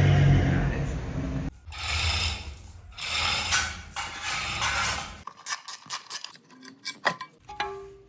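A V8 engine running briefly, then mechanical workshop noise of engine parts and tools being handled, with a string of sharp metallic clicks and rattles in the second half.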